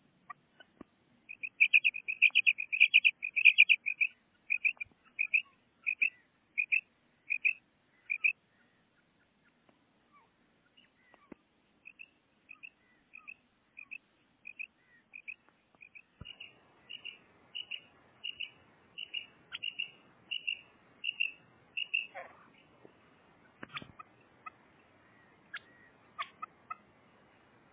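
Female common quail calling: long series of short, high, evenly spaced notes, about one and a half a second, loudest in the first several seconds, pausing briefly and then resuming. Near the end the calls stop and a few knocks and rustles come from the cage being handled.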